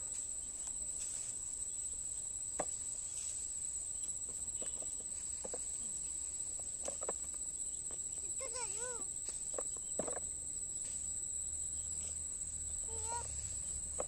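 Crickets chirring in a steady, high-pitched drone, with a few short faint calls and light knocks over it.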